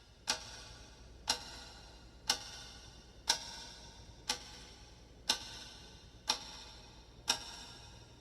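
Clock ticking sound effect: sharp ticks with a short ringing tail, one per second, over a faint low hum.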